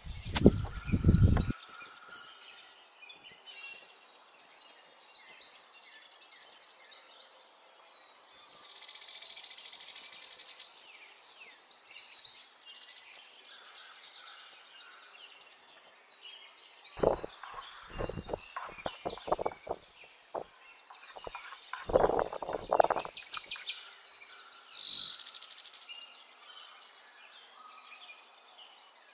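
Wild birds chirping and singing throughout. A quick run of knife chops on a wooden cutting board comes in the first second or so, and two more clusters of sharp knocks follow later.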